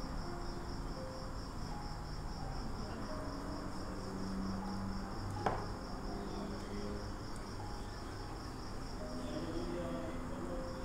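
Cricket chirping steadily in the background, a high pulsed trill of about five pulses a second, with one sharp tap about halfway through.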